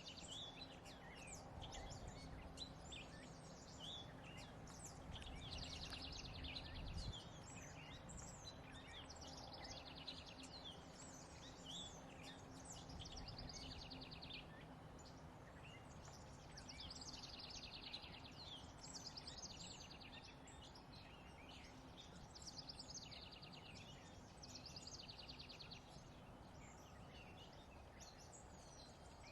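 Faint songbirds singing: short rapid trilled phrases repeat every few seconds, with scattered single chirps between them, over a low background hum.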